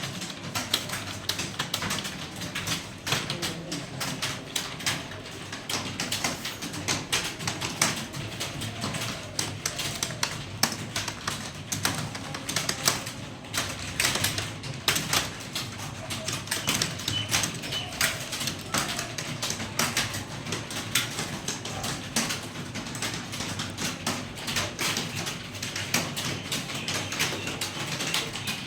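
Computer keyboard keys typed rapidly and steadily: a fast, unbroken run of clicks during a timed English typing test.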